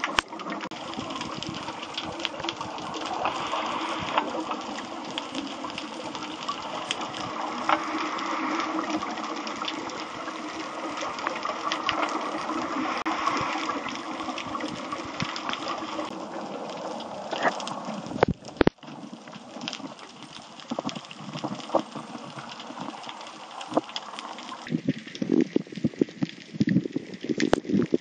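Underwater sound picked up by a submerged camera: a muffled rushing of water dotted with small clicks and crackles. It breaks off briefly about two-thirds of the way in, and turns into sparser, louder crackling over the last few seconds.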